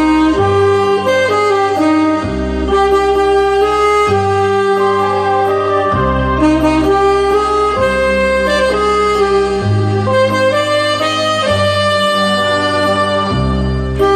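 Alto saxophone playing a slow melody of held notes over a recorded accompaniment, whose low bass notes change about every two seconds.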